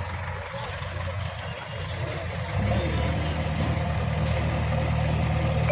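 Heavy bulldozer's engine running, revving up and working harder about two and a half seconds in.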